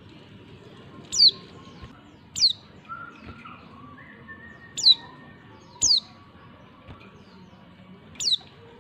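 Female white-eye (pleci) calling: five short, thin, high chirps, each sliding quickly downward, spaced irregularly about one to two and a half seconds apart. It is the kind of call kept as a lure to set male pleci singing.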